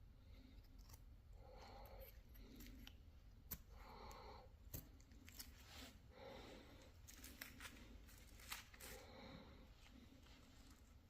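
Hand chisel paring wood: a string of faint, short scraping cuts and sharp clicks at an irregular pace.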